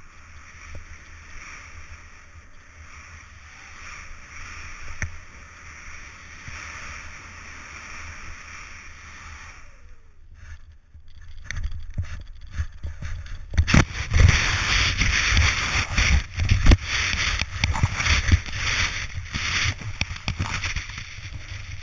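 Snow and wind noise on a helmet-mounted action camera while moving over snow. A steady hiss runs for about ten seconds, then after a short lull a much louder, rough rushing with low buffeting begins about fourteen seconds in.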